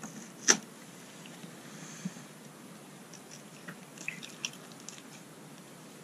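Knife cutting into a halibut on a fish-cleaning table: one sharp knock about half a second in, then scattered small clicks and scrapes over a steady background hiss.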